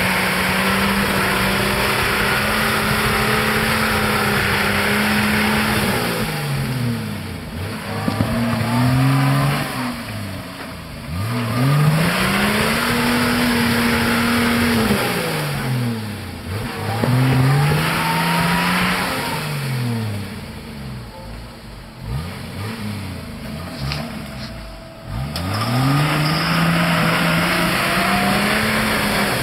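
An off-road 4x4's engine revving hard while its wheels spin in deep mud, stuck and trying to drive out. The engine is held high for the first several seconds, then revs up and drops off again and again.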